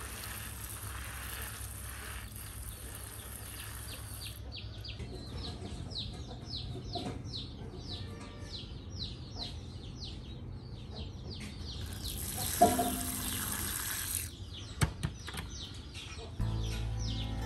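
A bird chirping over and over: short, high calls that slide downward, about three a second, after a few seconds of steady hiss. A few sharp clicks come near the end, and music starts in the last second.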